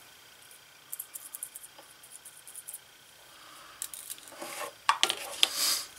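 Hands working a glued-on leather holster strap loose after it has been softened with acetone: faint light ticks at first, then louder rustling, scraping and clicking of the leather in the last couple of seconds.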